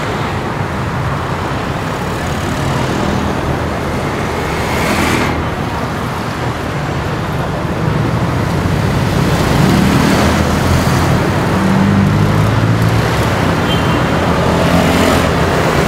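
Road traffic: a steady wash of vehicle engines and tyre noise, with engine hum growing louder about halfway through.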